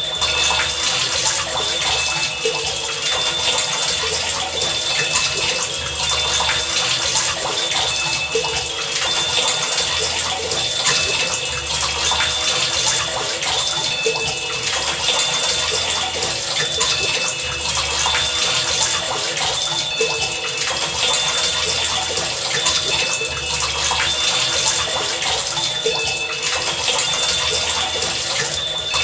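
Heavy rain falling steadily. Over the rain, short high tones and low pulses repeat in an even pattern about every two seconds.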